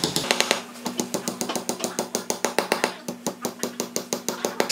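Hammer tapping wooden lock pins down into drilled holes in a wooden finger joint: quick, even, sharp taps, about five or six a second, over a steady low hum.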